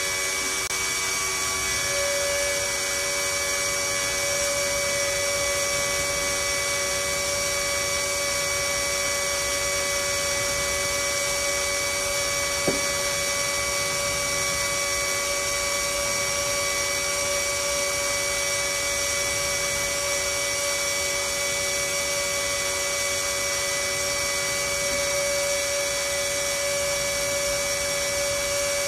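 Small motor-driven transfer pump running with a steady whine, pumping windshield washer fluid from a bucket through a hose into a tractor's rear tire as liquid ballast. A single sharp click about halfway through.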